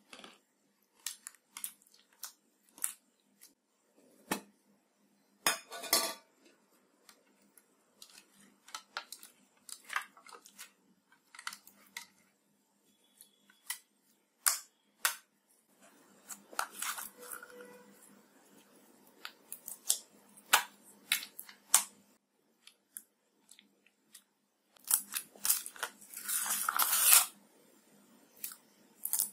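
Hands squeezing and dropping sticky slime into a glass dish: a string of short wet clicks, pops and crackles at irregular times, with a longer, louder crackling stretch near the end.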